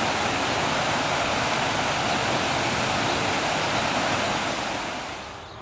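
Water pouring over a mill weir into a pool: a steady rushing that fades out near the end.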